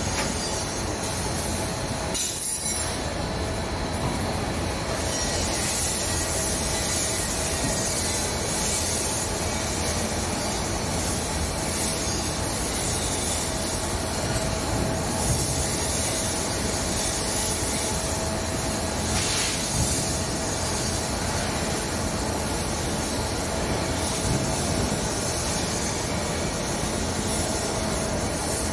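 Steady mechanical noise of a rotary machine turning and working a large sheet-iron cylinder, with a steady mid-pitched whine running through it.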